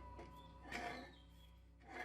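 Faint background music with a few plucked guitar notes.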